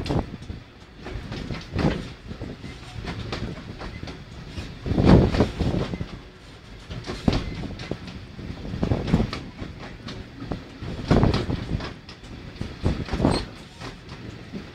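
Narrow-gauge train carriage running along the track: a continuous rumble, with a heavier clatter from the wheels every couple of seconds.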